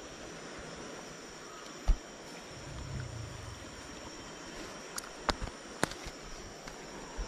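Steady high-pitched insect drone, with a dull thump about two seconds in and a few sharp clicks near the end as a fish and a mesh keep net are handled.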